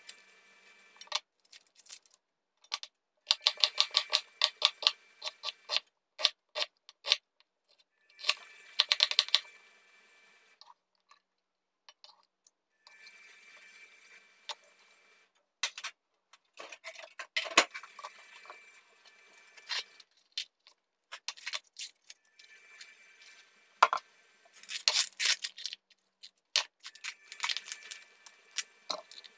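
Kitchen knife chopping an onion on a wooden cutting board, in quick runs of taps with pauses in between.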